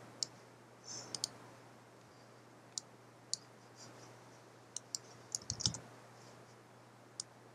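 Scattered single computer mouse clicks a second or more apart, with a quick run of several about five seconds in, over a faint steady hum.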